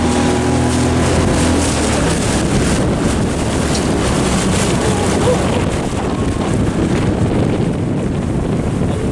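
Wind buffeting the microphone over rushing water, with a boat engine's steady hum fading out about a second and a half in.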